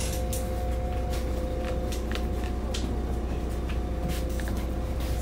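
Heard from inside a city bus: a steady low engine rumble with a constant whine over it, and scattered clicks and rattles.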